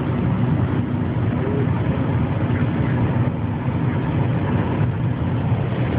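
Steady road and engine noise inside a moving car's cabin, a low hum under an even rush of tyre noise.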